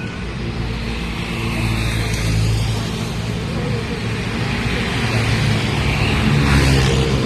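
Kaohsiung light rail tram running on its track, its motors humming low and steady over wheel-on-rail noise, growing gradually louder.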